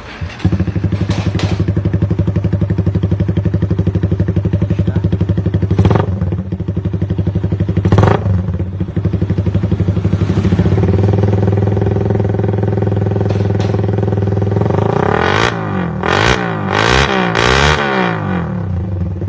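Suzuki Raider 150 motorcycle engine with an open Charama exhaust starts about half a second in and idles steadily. It is blipped twice briefly, then revved up and down several times quickly near the end.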